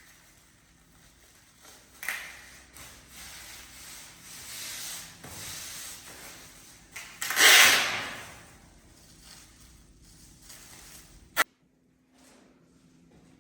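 Irregular rubbing and scraping noises from hand work on a surface, the loudest a long scrape about halfway through, ending with a sharp click after which the sound cuts off abruptly.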